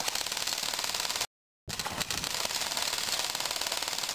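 Airsoft guns firing, a rapid, even clicking rattle, with a brief dropout a little over a second in.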